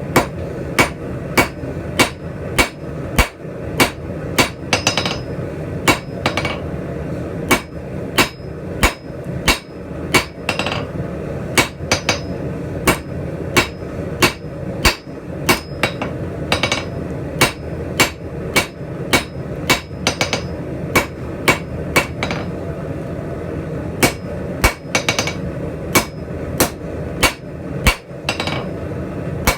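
Hand hammer striking hot steel on an anvil, drawing out tong reins, in a steady rhythm of about one and a half blows a second. Some blows carry a bright anvil ring, and a constant low rumble runs underneath.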